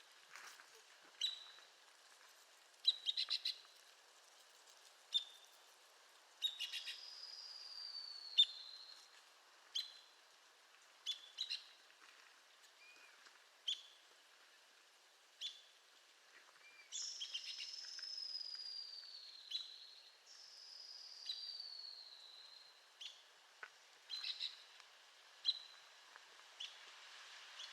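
Arizona woodpecker calling: short, sharp, high call notes at irregular intervals, some in quick clusters of two to four, and three longer calls that slide down in pitch, around 7 s, 17 s and 21 s in.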